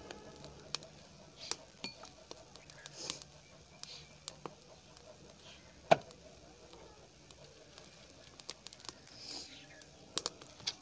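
Irregular sharp clicks and clinks from cooking at a wood-fired clay stove with an iron griddle, with one louder knock about six seconds in.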